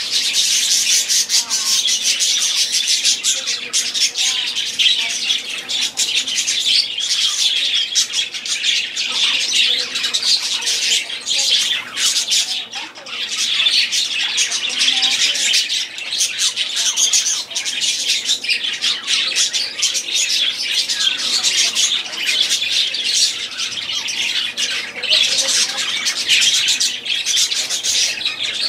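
Budgerigars chattering without pause, a dense stream of short high calls.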